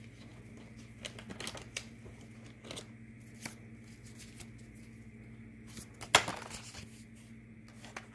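Tarot cards being shuffled and handled, with scattered rustles and flicks and one sharper card slap about six seconds in, over a faint steady low hum.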